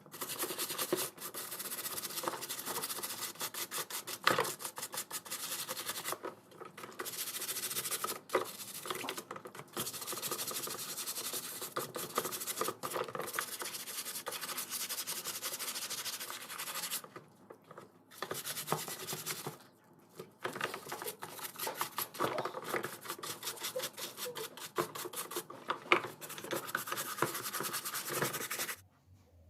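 Steady rubbing and scraping done by hand on a part, in long spells of fast strokes broken by a few short pauses, with occasional sharper scratches.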